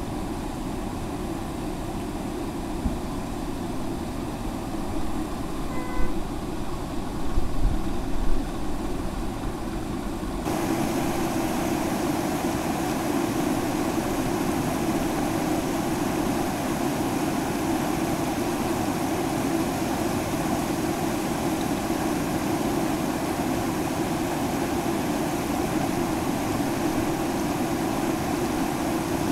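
Motorcycle running on the move along a rough road, a steady engine and road noise with a few knocks from bumps about six to eight seconds in. From about ten seconds in, the sound steps up louder and brighter.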